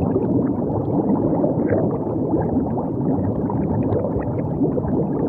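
Steady, dense bubbling and gurgling of liquid, low-pitched, with many small pops.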